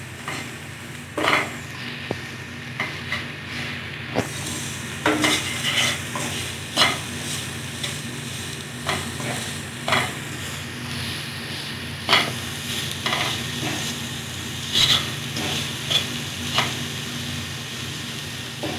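Wooden spatula stirring and scraping chopped cabbage and vegetables around a non-stick pan, the strokes coming irregularly about once a second over a steady frying sizzle. A steady low hum runs underneath.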